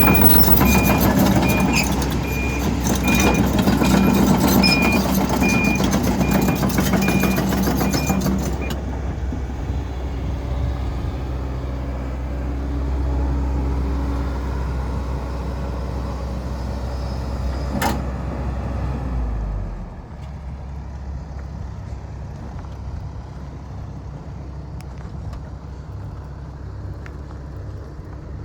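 Kobelco SK210LC-9 excavator's Hino diesel engine working its hydraulics under load, with an alarm beeping about once every three-quarters of a second. About eight seconds in the beeping stops and the engine settles to a quieter run, with a single sharp click and a further drop in engine sound later on.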